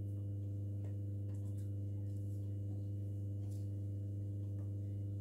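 A steady low electrical hum with a stack of evenly spaced overtones, unchanging throughout. Faint rustles of hands working through hair sound now and then over it.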